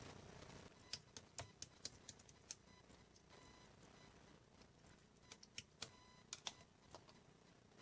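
Near silence, broken by two bursts of short, sharp clicks: about half a dozen starting about a second in, and another handful between five and seven seconds in.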